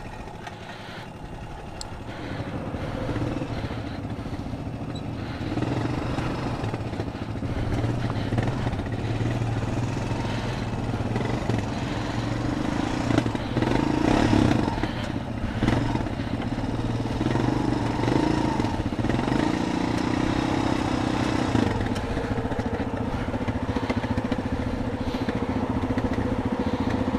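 ATV engine running steadily, growing louder a few seconds in and then holding with small rises and falls in pitch.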